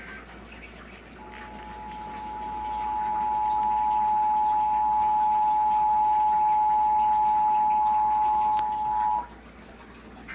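Two-tone Emergency Alert System attention signal: two steady tones sounded together, growing louder over its first few seconds, then held for about eight seconds before cutting off sharply.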